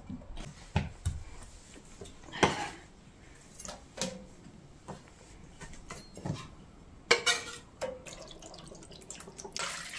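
Utensils knocking and scraping in a stainless steel hotel pan as pineapple chunks are squashed, in scattered single knocks with a cluster a little after the midpoint. A short rush of noise comes in just before the end.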